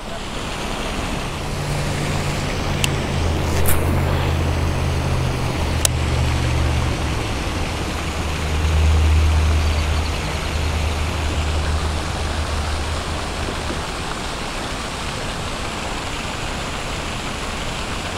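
Steady hiss of light drizzle, with the low hum of a vehicle engine from about a second in that fades out a few seconds before the end. A few sharp clicks come in the first six seconds.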